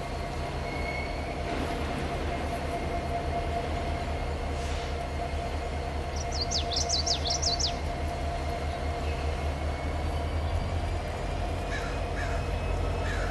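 Freight train rolling by out of sight, a steady low rumble with a steady hum over it. About six seconds in, a bird gives a quick run of harsh, sweeping calls lasting a second or two.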